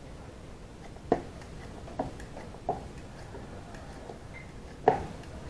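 Vegetable peeler stripping a raw potato: four sharp clicks at uneven intervals, the loudest near the end, with fainter scraping strokes between.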